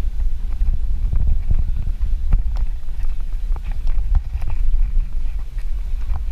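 Bicycle ridden along a paved path, heard from a handlebar-mounted camera: a steady low rumble of wind and road vibration, with irregular rattling clicks and knocks from the bike over bumps.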